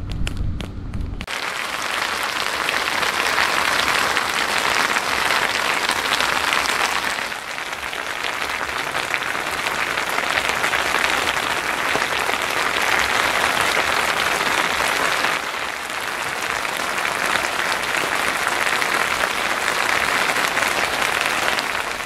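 Heavy rain pouring down: a dense, steady hiss of drops that starts abruptly about a second in.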